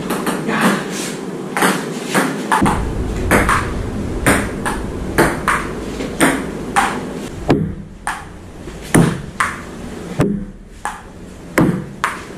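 Table tennis rally: a ping-pong ball clicking off paddles and the table about twice a second, with a short lull partway through.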